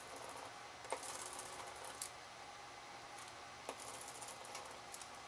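Faint small clicks and scratchy handling noise from fingers working small parts on the opened HTC One M9's internal board and frame, with a scratchy stretch about a second in.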